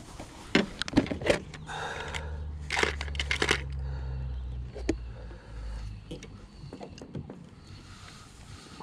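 Clicks, knocks and rattles of a plastic tackle tray being handled and lead jig heads picked through by hand.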